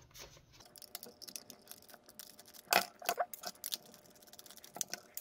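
Scattered small clicks and taps of a precision screwdriver working the screws on the underside of an Inphic PM6 wireless mouse, with its plastic shell being handled. A cluster of louder clicks comes about three seconds in.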